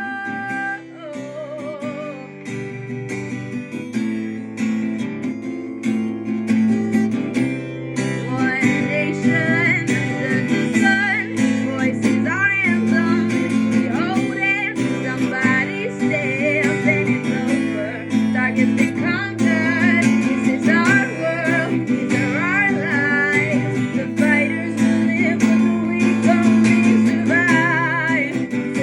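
Acoustic guitar strummed and picked in an instrumental passage, with a melody line that bends and wavers above the chords from about eight seconds in.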